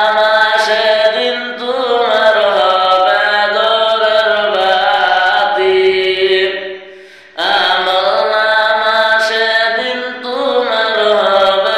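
A man singing a Bengali gojol (Islamic devotional song) solo, with no instruments, in long held, sliding phrases; the voice breaks off briefly about seven seconds in, then starts a new phrase.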